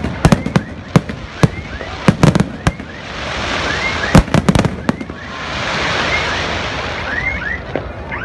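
Fireworks display: a rapid series of sharp bangs from bursting shells, thinning after about three seconds into long swells of crackling hiss, with a few more bangs around four seconds in.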